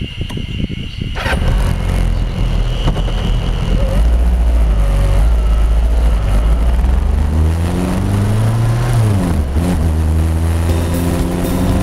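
Motorcycle engine pulling away and accelerating, with wind rushing over the microphone. Its pitch climbs near the eight-second mark, dips briefly at a gear change, then holds steady as the bike cruises.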